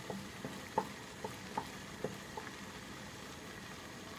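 Thick tomato sauce stirred with a wooden spoon in a steel pot: about seven soft, wet plops over the first two seconds or so, then only a faint steady hiss. The sauce is reduced and cooked down.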